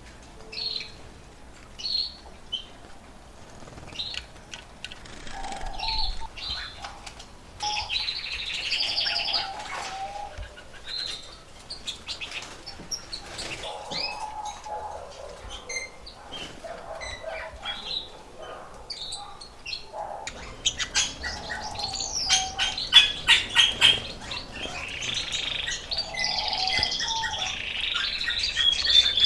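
Caged canaries chirping and calling, with short rapid trills of song that grow busier over the second half; the birds are coming into breeding condition.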